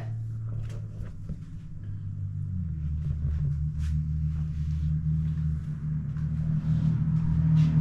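A low, steady hum that shifts and grows stronger about two and a half seconds in, then slowly gets louder, with a few faint clicks.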